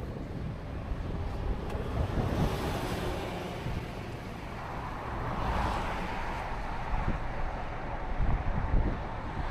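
A car driving: steady low rumble of the road, with wind on the microphone. The noise swells about two seconds in and again around the middle, and comes in gusts near the end.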